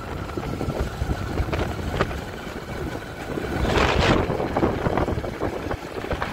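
A motor vehicle's engine running on the move, with steady low road rumble; a louder rush of noise swells and fades about four seconds in.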